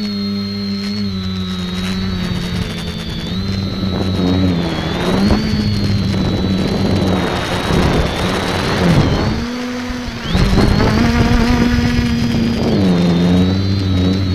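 Brushless electric motors and propellers of an X550 multicopter, heard from its onboard camera: a steady buzzing whine whose pitch shifts a little with throttle. A loud rushing noise swells over the whine twice, about a third of the way in and again just after the middle.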